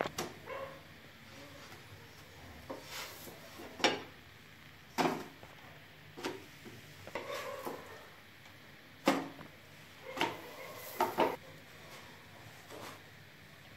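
Scattered clinks and knocks of kitchen pans and steel plates being handled while flatbreads are turned on a tawa: about half a dozen sharp knocks between quieter stretches.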